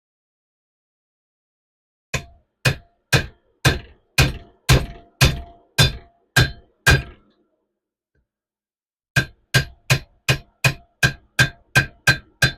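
Hammer striking a seal driver to drive a grease seal into a Dexter trailer axle hub. There are about ten sharp knocks at roughly two a second, a short pause, then another ten or so coming faster, until the seal is fully seated.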